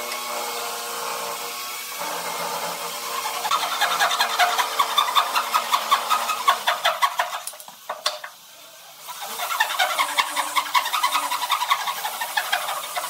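Electric power tool motor running, then cutting into wood with a rough, fast-pulsing sound from about three seconds in. It eases off briefly past the middle, then cuts again.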